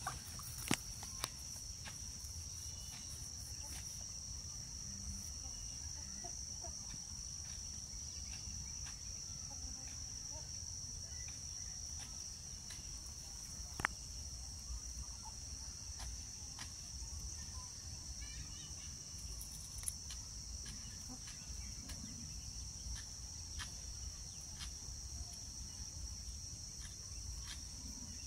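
Insect chorus: a steady, high-pitched chirring that does not let up, with a low rumble beneath it. A few short clicks cut through, the sharpest about fourteen seconds in.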